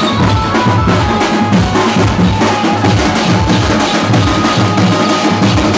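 Street drum band playing a loud, fast, steady rhythm, with many drums struck together and a few thin held tones above them.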